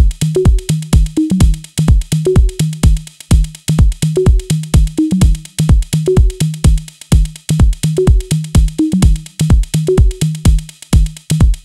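Background music: an electronic drum-machine beat with a steady kick drum, a repeating bass line and fast hi-hat ticks.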